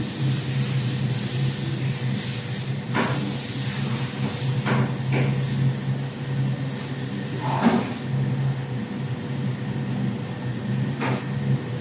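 Steady low machine hum, with a few light clicks and knocks scattered through, the loudest a little under two thirds of the way in.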